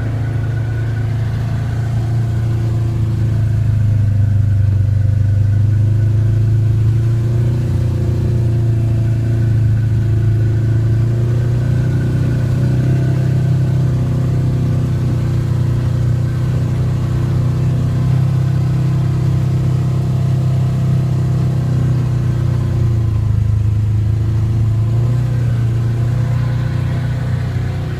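ATV engine running steadily under way, its pitch shifting slightly with the throttle.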